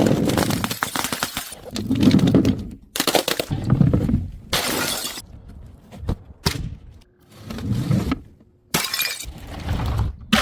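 Glass bottles smashing one after another: a series of loud shattering crashes about every one to two seconds, each with a heavy low thud and crackling, tinkling shards.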